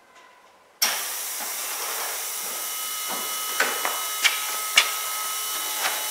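FASS electric fuel lift pump switching on about a second in and running with a steady whine and hiss. It is drawing air through still-empty fuel lines, not yet primed. A few sharp ticks sound over it.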